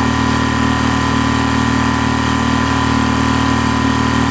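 Small boat's motor running at a steady speed, an even, unchanging drone.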